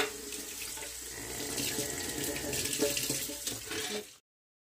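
Kitchen faucet running cold water onto a rack of raw pork ribs in the sink, a steady splashing hiss as the meat is rinsed, with a sharp click at the start. The sound cuts off suddenly just after four seconds.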